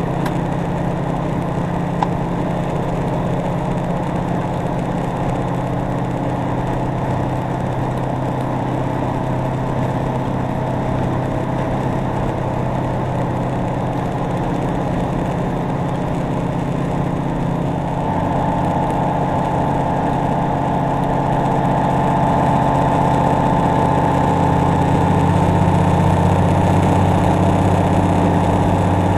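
Cummins N14 diesel engine of a Peterbilt 379 running steadily under way. A steady turbo whistle comes in a little past halfway, and the engine grows somewhat louder toward the end.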